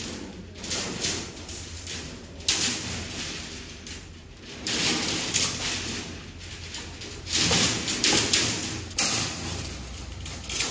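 Long steel rebar being dragged and handled, the bars scraping over the concrete floor and rattling against each other in several surges, some starting suddenly.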